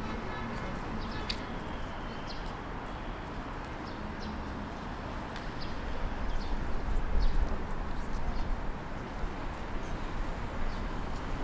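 Open-air city street ambience: a steady wash of traffic and crowd noise with scattered light clicks, and a low rumble swelling for a couple of seconds past the middle.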